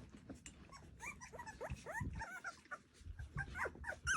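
Three-week-old micro sheepadoodle puppies whimpering and squeaking: many short, high cries that rise and fall in pitch, overlapping, starting about a second in, over faint clicks and rustling.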